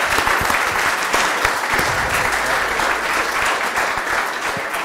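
A lecture-hall audience applauding steadily at the end of a talk.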